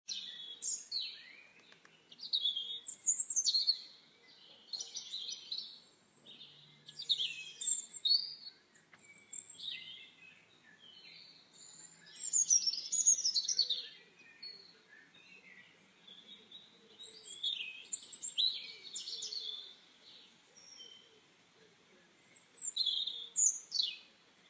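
Bursts of high-pitched chirping and twittering calls, many of them falling in pitch, coming every second or two with short gaps between.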